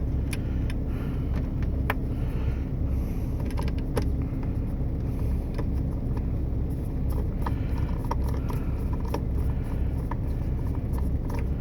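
Scattered light clicks and taps of a small hold-down bracket and screws being handled and fitted into a radio's open case, over a steady low hum.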